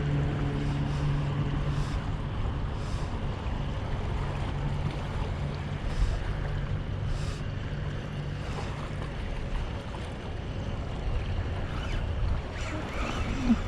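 A boat's engine droning steadily, fading out about nine seconds in, over wind noise on the microphone and water.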